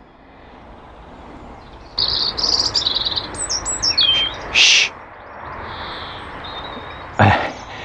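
European robin singing: short, high, varied phrases of chirps and thin gliding whistles starting about two seconds in. A brief louder noise comes near the end.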